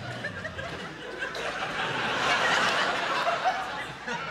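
Theatre audience laughing, a mass of chuckles and laughs that swells about two seconds in.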